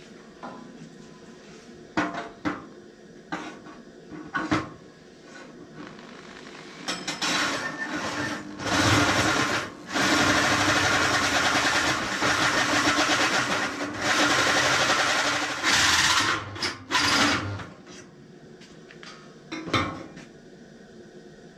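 Corded electric drill with a hole saw cutting through a steel frame member, running in spells of a few seconds with short pauses, after a few sharp clanks of the tool being handled on the steel. A couple more clanks come near the end.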